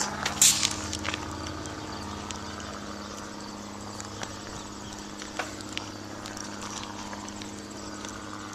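Diesel locomotive engine running as a steady low hum, with scattered light clicks and knocks from a bicycle rolling over the railroad crossing and rough ground.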